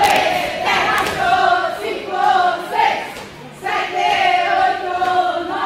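A group of women's voices calling out together in unison, in drawn-out shouted syllables that keep time with a warm-up exercise. There is a short break about three and a half seconds in.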